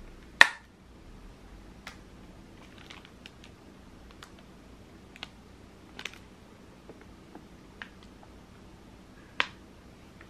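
Scattered sharp clicks and light taps of plastic food packaging being picked up and handled. The loudest is about half a second in, and another strong one comes near the end.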